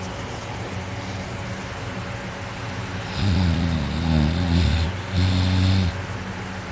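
A sleeping girl snoring loudly: about three seconds in comes one long snore of wavering pitch, lasting some two and a half seconds with a brief break near its middle.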